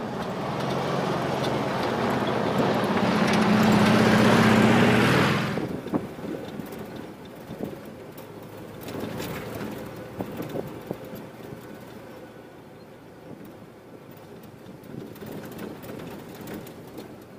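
A Volkswagen Thing's engine and tyres on a sandy dirt track as it drives up and passes close by, growing louder and peaking about four to five seconds in. Then, heard from inside the moving car, a quieter engine drone with scattered knocks and rattles from the rough track.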